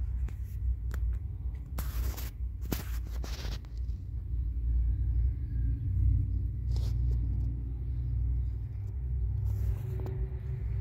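A low, steady rumble throughout, with two short bursts of hiss about two and three seconds in.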